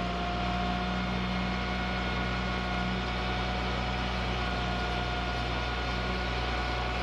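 A vehicle engine idling steadily, with a steady high whine over its low hum.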